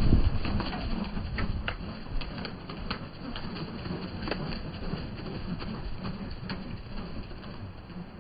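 White doves' wings flapping as they take off and fly about, with scattered sharp clicks and wing claps; loudest at the start, then fading.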